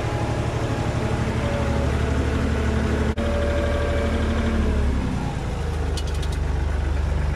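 Farm vehicle's engine running steadily, close up; its note shifts lower about five seconds in.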